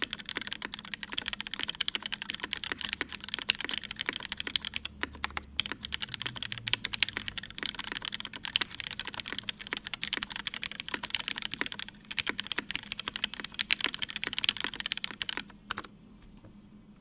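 Fast, continuous typing on a TGR910ce mechanical keyboard with lubed Cherry MX Black Hyperglide linear switches in a brass plate and GMK keycaps. The typing stops about a second and a half before the end.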